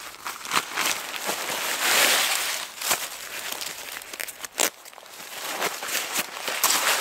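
Nylon tent fabric and its stuff sack being handled and unpacked, crinkling and rustling with sharp crackles, loudest about two seconds in and dropping briefly near five seconds before picking up again.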